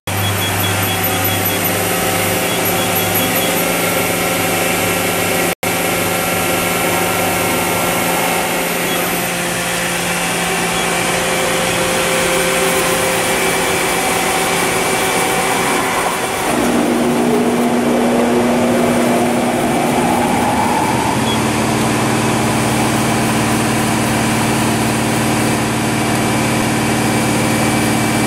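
Mori Seiki NT1000/SZM CNC turning and milling center running with a steady machine hum. A little over halfway, a motor whine rises in pitch over about four seconds, then holds a steady tone as the hum grows a little louder.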